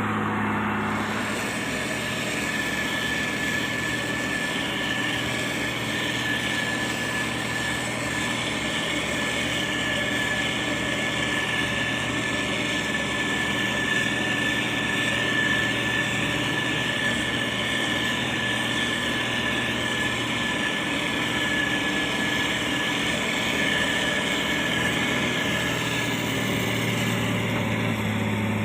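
Motor grader's diesel engine running steadily, with a steady high whine over it.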